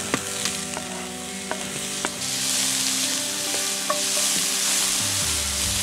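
Finely chopped onion sizzling in hot vegetable oil in a frying pan, with scattered sharp clicks through the hiss; the sizzle grows louder about two seconds in.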